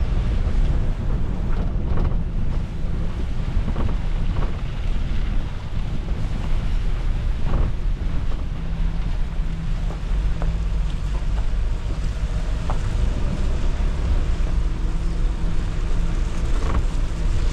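Suzuki Jimny driving off-road: a steady low rumble of engine and vehicle noise with wind on the microphone, and a few light knocks.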